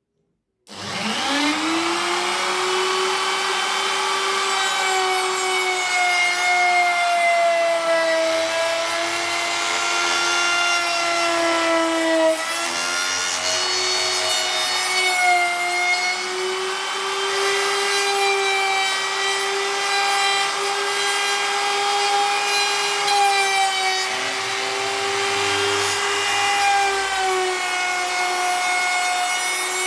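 An electric power tool running continuously with a steady whine whose pitch sags and recovers as the work is pressed against it.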